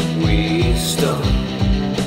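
Instrumental stretch of a homemade song: a steady drum beat under held low notes.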